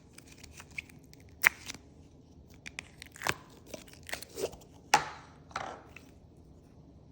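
Crunchy bead-filled slime being handled, giving a few separate sharp crackles and clicks with small crunches in between.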